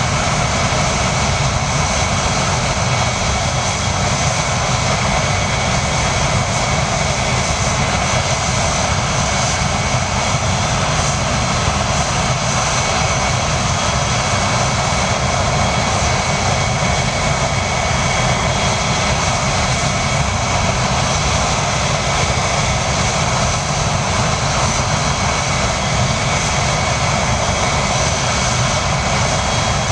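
Avro Vulcan's Olympus turbojet engines running steadily on a stationary ground run: a loud, unchanging rush of jet noise with steady high-pitched whines over it.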